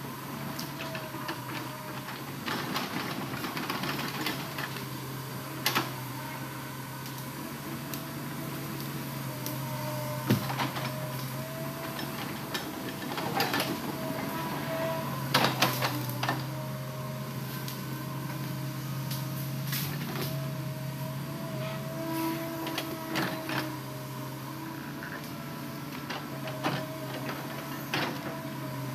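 Hitachi Zaxis hydraulic excavator running steadily as it moves logs, a constant engine hum with a wavering whine above it. Several sharp knocks and clunks come and go as the bucket meets the wood.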